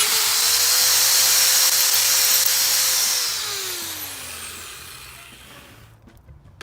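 Power drill running at steady speed while drilling a hole through a metal vise part. About three seconds in, the trigger is released and the motor winds down, its whine falling in pitch and fading out.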